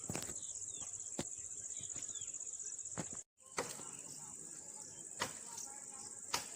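Insects making a steady, high-pitched buzz, with a few sharp clicks scattered through it. The sound drops out briefly about three seconds in.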